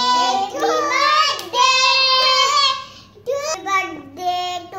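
A child singing, with long held notes that slide in pitch and a short break about three seconds in.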